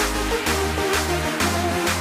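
Background electronic dance music with a steady bass beat, about two beats a second.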